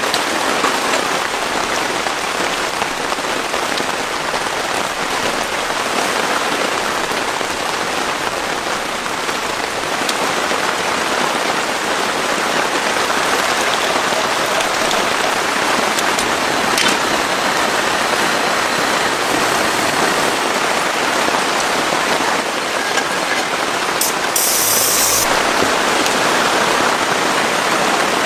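Heavy rain falling steadily on surfaces, a loud, even hiss. A brief sharper, higher noise sounds about three-quarters of the way through.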